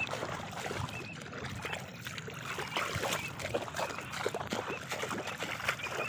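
Shallow water sloshing and dripping as a freshly shot teal is lifted out, water running off its feathers, with a few faint high chirps.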